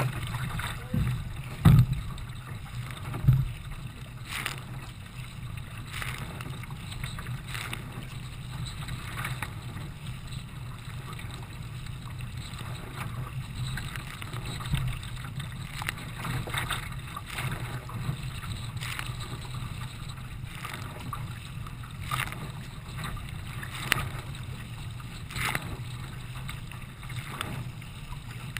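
Choppy water rushing and splashing against the bow of a racing kayak under way, with a low wind rumble on the microphone. A sharp splash comes about every second and a half, and two heavy thumps come about two and three seconds in.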